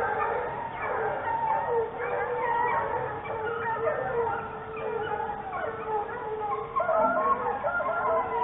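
A pack of boar-hunting hounds baying and howling together, many voices overlapping without a break, louder for a moment about seven seconds in.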